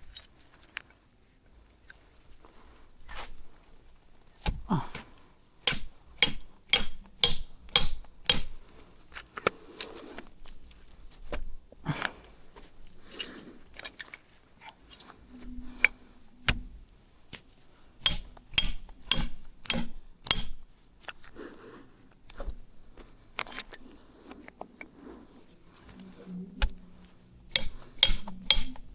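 An irregular series of sharp clinks and knocks, dozens of separate strikes, some in quick pairs, with brief pauses between runs.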